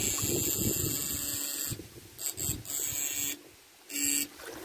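Electric fishing shocker giving off a high-pitched electrical buzz. It is switched on for the first couple of seconds, then in several shorter bursts, as the electrode rod is swept through the water to stun fish.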